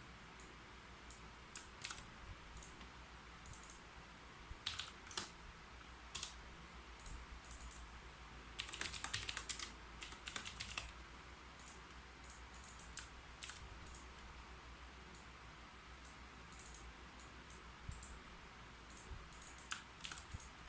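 Typing on a keyboard: scattered, irregular keystrokes with a quick burst of rapid typing about nine to eleven seconds in.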